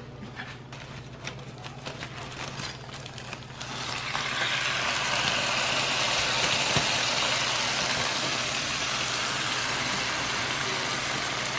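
Aluminium foil crinkling and crackling as it is pulled back off a hot roast. About four seconds in, a steady sizzling hiss starts up and becomes the loudest sound, with a low hum underneath.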